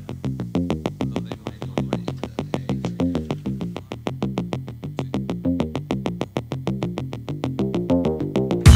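Background music: a quick, even run of short synthesizer notes, with the full, louder track coming in right at the end.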